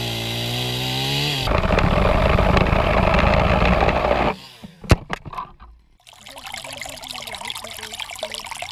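Stihl chainsaw running at high revs, then cutting into an apple tree branch with a louder, rougher sound, stopping abruptly about four seconds in. After a sharp knock or two, a shallow creek trickles over stones.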